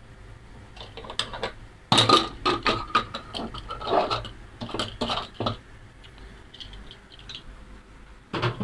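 Metal clanks and scraping as an aluminium pressure cooker's lid is twisted free and lifted out of the pot. There is a quick run of sharp knocks between about one and five seconds in, and one more clank near the end.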